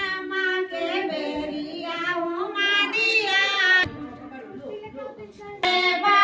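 A woman singing a Chhath devotional folk song unaccompanied into a handheld microphone, in long held, gliding phrases. The singing drops back about four seconds in and comes in loud again just before the end.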